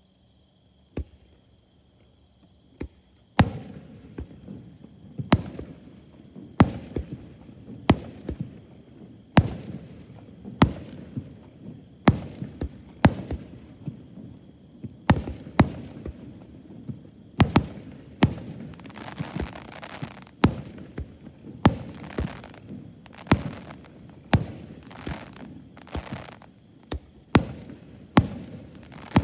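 Fireworks display: aerial shells bursting in a steady run of sharp bangs, one every second or so, each with a rumbling tail, and crackling between the bursts in the second half. Insects chirr steadily at first, with two lone bangs before the run starts about three seconds in.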